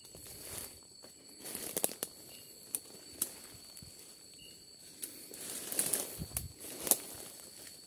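Footsteps pushing through dense undergrowth: leaves and twigs rustle and crackle in irregular bursts, with a few sharp snaps of twigs.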